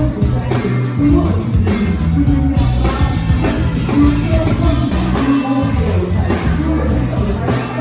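Live band playing a groove with a strong bass line and drum kit, with some singing.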